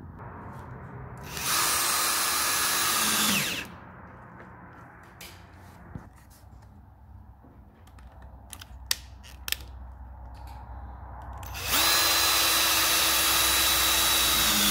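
Battery drill driving float screws through a foam float into a plastic oyster basket: two runs of about two and three seconds, each at a steady pitch and winding down as the trigger is let go. A few small clicks of handling fall between them.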